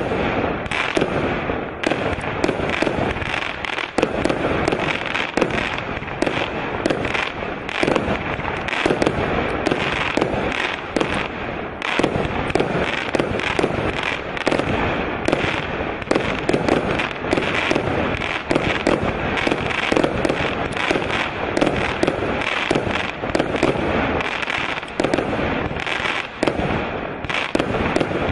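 A 188-shot consumer firework cake firing a rapid, unbroken barrage of launches and bursting shells, several sharp reports a second.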